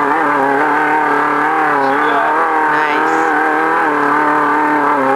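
Off-road race car's engine running hard at fairly steady high revs, heard from inside the car, its pitch wavering slightly and dipping briefly twice as the throttle is eased and reapplied.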